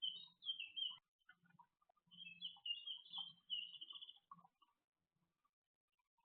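Tits twittering in quick chattering calls: a burst in the first second and a longer run of fast repeated notes from about two seconds in, under which come faint low taps. Still after about four and a half seconds.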